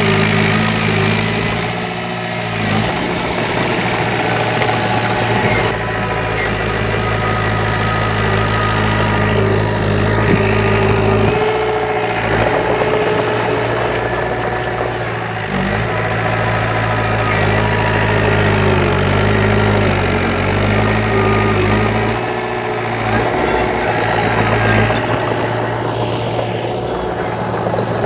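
Diesel engine of heavy earthmoving machinery running steadily, its note shifting down and back up a few times.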